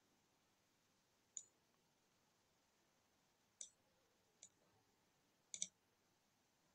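Computer mouse buttons clicking: three single clicks spread a second or more apart, then a quick double-click near the end.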